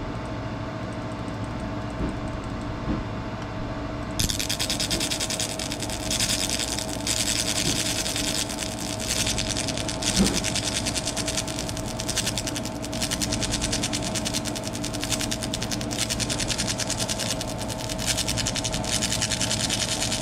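Laser engraver stippling the surface of an airsoft gun part. A dense, rapid crackling hiss starts about four seconds in and runs on with brief breaks, over a steady machine hum.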